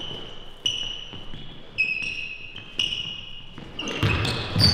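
Basketball sneakers squeaking on a hardwood court: a run of short, high squeaks as the players cut and plant, with a basketball bouncing on the floor in between.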